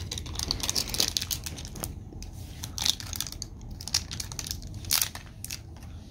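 Wrapper crinkling and tearing as a small child peels it off a plastic toy egg: dense crackling for the first two seconds, then a few separate crinkles.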